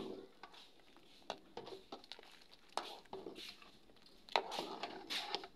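Metal ladle stirring chunks of root crop in a metal cooking pot, with irregular clicks and scrapes against the pot.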